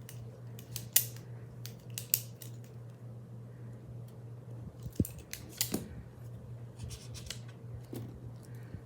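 Small objects and packaging being handled by hand: a string of sharp clicks and crinkles, loudest about a second in, at two seconds and around five to six seconds, over a steady low hum.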